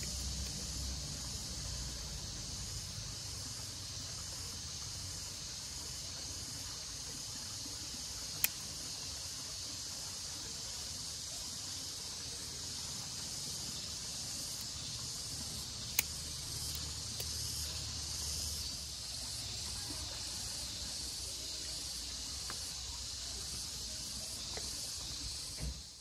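Steady high-pitched insect chorus, with two sharp clicks of pruning shears snipping orchid roots, the first about a third of the way in and the second about two thirds in.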